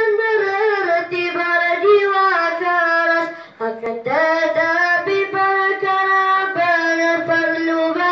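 A boy singing a devotional song solo into a microphone, with no accompaniment, holding long, ornamented notes that bend between pitches. He breaks off briefly for breath about three and a half seconds in.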